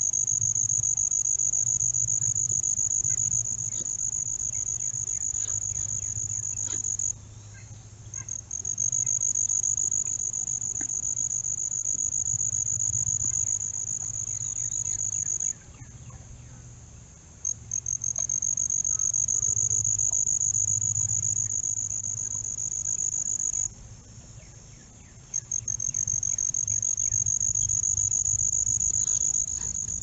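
An insect trilling loudly and continuously at a high pitch in long bouts, stopping briefly three times, over a faint low hum.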